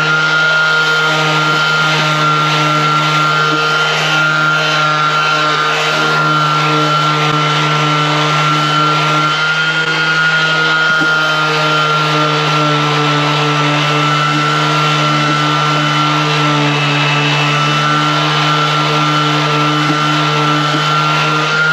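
Ryobi ONE+ 18V cordless random orbit sander running at steady speed, sanding a teak toe rail over dried wood-filler patches: an even motor hum and whine that holds its pitch.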